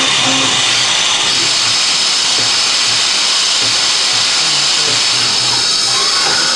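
Manurhin K'MX Swing 1026 Swiss-type CNC lathe machining, several tools cutting at once: a dense steady cutting noise with a high whine that steps up in pitch about a second in.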